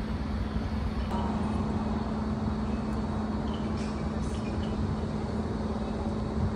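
Steady mechanical hum with a low rumble, heard from a moving Ferris wheel gondola, with a few faint ticks about four seconds in.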